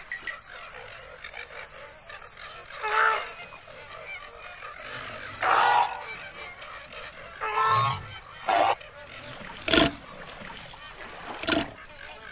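Cartoon flamingos honking: about six short, goose-like honks, one every second or two.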